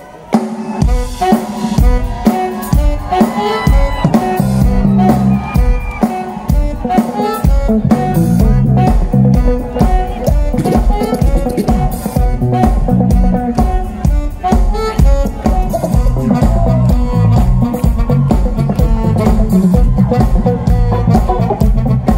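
Live band playing an upbeat dance number over a loud PA: a drum kit keeps a steady beat of kick and snare under electric guitar and keyboard. It starts suddenly about half a second in, after a brief hush.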